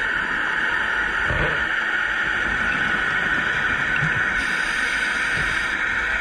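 Steady underwater hiss picked up by a diving camera, with a couple of soft low bumps.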